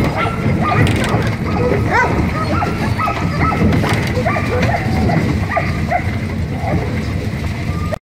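A chorus of sled dogs yipping, barking and whining, many short rising and falling calls overlapping, over a steady low rumble of the team's cart rolling on gravel. It cuts off suddenly near the end.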